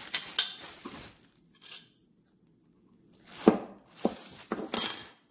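Plastic packaging crinkling as a grinding wheel and its metal spanner wrench are unwrapped, with a few sharp metal clinks. The last clink, near the end, rings briefly.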